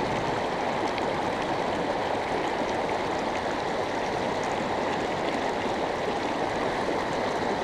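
Steady flowing water of the Frying Pan River, an even rushing sound that holds unchanged.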